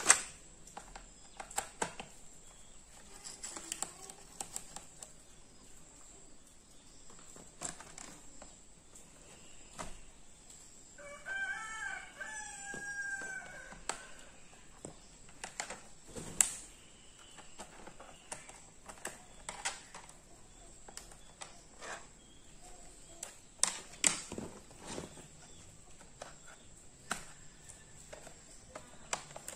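Scattered clicks and knocks of a screwdriver and hands working on a laptop's plastic underside. About eleven seconds in, a rooster crows once, a wavering call about two seconds long.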